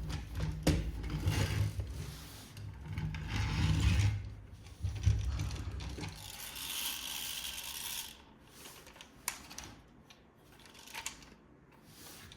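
Clicks and rattles of plastic toy parts being handled, with a rustle about six seconds in, then fewer and fainter clicks.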